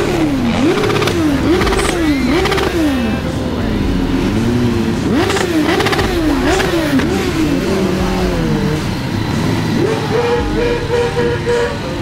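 Motorcycle engines revved over and over in quick throttle blips, the pitch rising and falling about twice a second, over the steady running of a group of bikes. Near the end one engine holds a higher note in short broken pieces.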